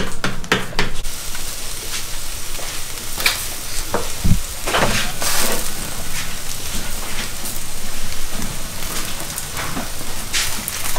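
Corn tortillas cooking over a wood fire: a steady sizzling hiss with scattered crackles and pops, and one dull knock about four seconds in.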